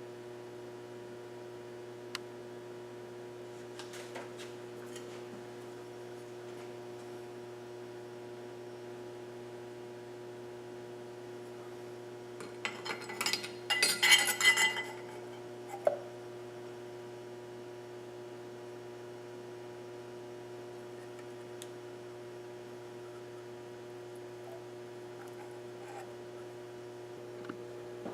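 Small metal parts clinking against each other in a quick cluster about halfway through, then one more click, over a steady electrical hum.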